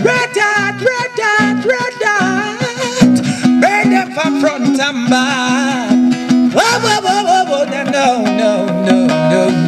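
Acoustic guitar strummed in a reggae groove, with a man's voice singing wordless, wavering runs over it.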